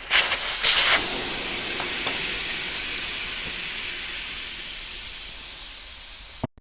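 Air hissing out of a 4-inch fat e-bike tire through its open valve stem with the valve core pulled. It is loudest in the first second, then slowly fades as the tire deflates from about 20 psi, and stops near the end.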